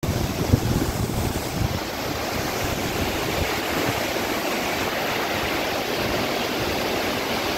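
Waterfall and the white-water stream below it rushing over rocks: a steady, dense water noise, with a few low bumps in the first two seconds.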